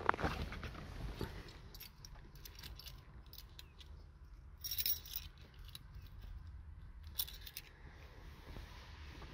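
A bunch of car keys jangling in two short bursts, about five seconds in and again about two seconds later, among faint clicks and a few bumps near the start as someone settles into the driver's seat.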